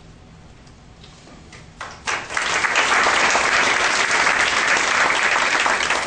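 A short hush, then an audience bursts into applause about two seconds in, many hands clapping densely and steadily.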